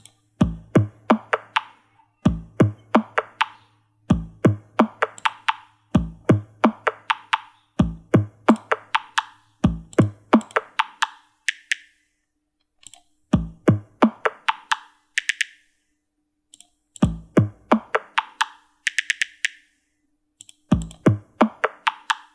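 A short percussive sample played from FL Studio's piano roll in repeating runs of quick hits, each hit higher in pitch than the one before. The runs come about every two seconds; in the second half they are transposed far up and sound thin and clicky.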